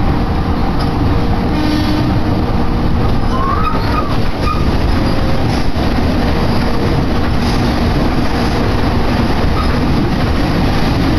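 Electric Joban Line train running at speed, heard from inside the carriage: a steady, loud rumble of wheels on the rails.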